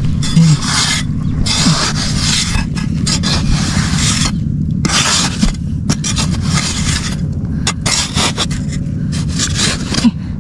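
Repeated, irregular scraping from digging into a muddy crab hole, over a steady low rumble.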